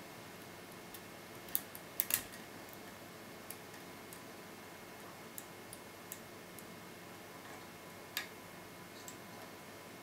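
Small, irregular metallic clicks of a hook pick working the pin stacks of a TESA T60 euro cylinder held under a tension wrench. A few louder clicks come about two seconds in and again near eight seconds.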